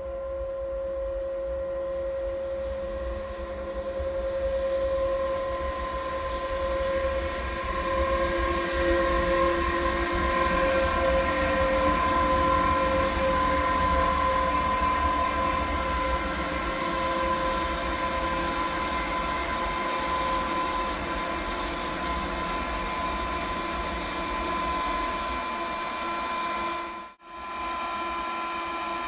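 Class 111Ed electric locomotive (Siemens Vectron) running light past at close range: a low rail rumble under steady, high electric whining tones from its traction equipment. The sound swells as it passes and then eases. It cuts out briefly near the end.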